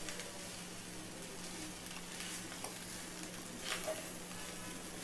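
Fried rice with vegetables and Schezwan sauce sizzling faintly in a hot oiled pan while being stirred, with a few soft scrapes of the spoon, the clearest about three and a half seconds in.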